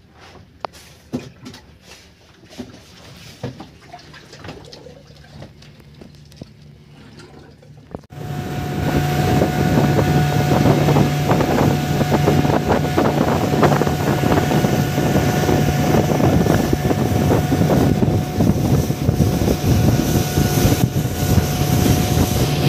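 A fishing boat's engine running under way, a steady loud hum mixed with the rush of wind and water, which starts abruptly about eight seconds in. Before that it is quieter, with a few light knocks on the deck.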